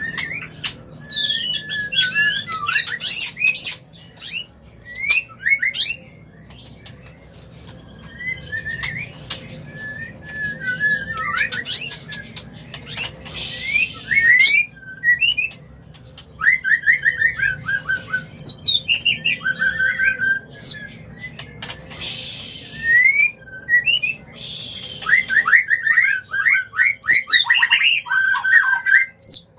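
White-rumped shama (murai batu) singing its mating song, the call of a bird in breeding condition: a continuous varied run of clear gliding whistles and rapid trills, broken by harsh rasping notes about 13, 22 and 25 seconds in.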